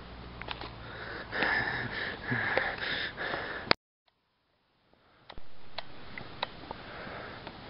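Rustling handling noise and scattered clicks close to the camera's microphone, with a louder hissing stretch in the first half. The sound cuts out abruptly for about a second and a half midway, then the rustle and clicks return.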